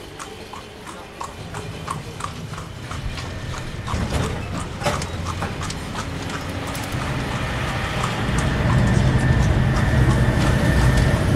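Horse hooves clip-clopping in a steady rhythm, with the low rumble of a moving train building up underneath in the second half.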